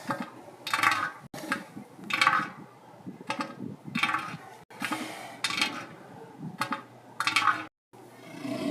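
A made-up elephant seal sound effect: a run of short, clattering, crunchy bursts, roughly one a second.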